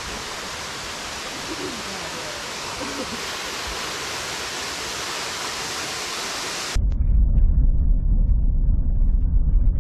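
Steady rush of a waterfall, with faint voices under it. About seven seconds in it cuts abruptly to a louder low rumble of a vehicle driving on a bumpy dirt road.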